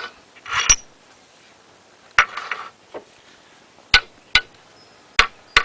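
Steel log dogs being driven into a log with their driver: about six sharp metal strikes, unevenly spaced, the last two close together.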